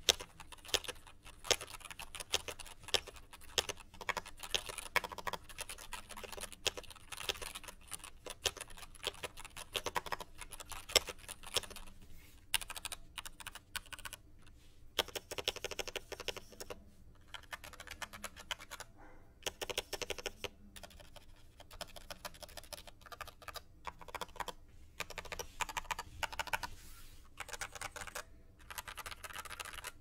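Typing on an IQUNIX L80 Formula mechanical keyboard: fast, irregular key clacks from its stock, unlubed switches, broken by a few short pauses in the second half. The spacebar, on factory-lubed Costar stabilizers, is also pressed on its own.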